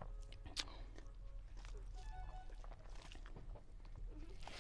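Eating rice by hand from a metal plate: fingers mixing and squeezing rice against the plate, with scattered small clicks and chewing.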